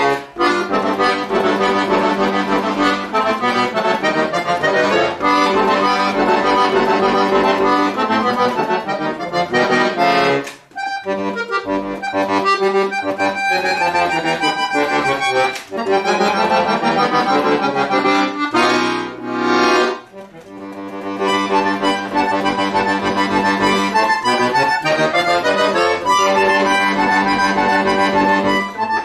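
Chromatic button accordion played solo: fast runs of quick notes over held bass notes. The playing dips briefly about ten seconds in and again about two-thirds of the way through, then carries on.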